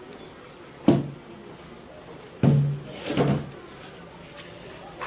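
Steel cookware knocking: a metal bowl of batter set down and clanking three times, once about a second in, then twice in quick succession around the middle.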